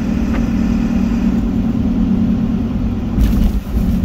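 Truck driving, with a steady low rumble of engine and road noise and a brief louder surge about three seconds in.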